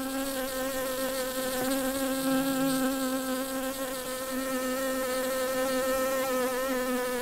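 Honeybees buzzing: a steady, slightly wavering hum.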